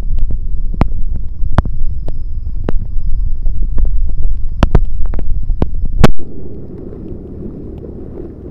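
Wind buffeting a phone microphone with a heavy low rumble and scattered sharp clicks. About six seconds in it cuts off abruptly to a quieter, steady rushing noise.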